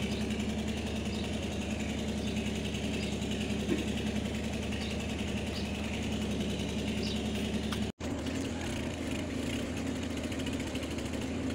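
Steady low mechanical hum, like a motor or engine running, that cuts out for an instant about eight seconds in.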